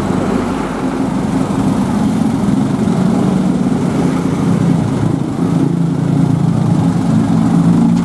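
Loud, steady low drone of a bus's diesel engine running close by.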